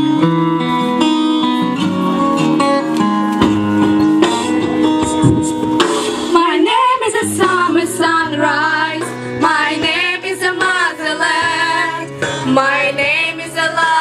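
Acoustic guitar music, strummed, with a group of girls starting to sing along about six seconds in.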